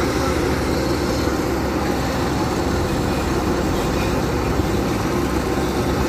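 Heavy diesel road-paving machinery running steadily: an asphalt paver laying asphalt while pushing the dump truck that feeds it.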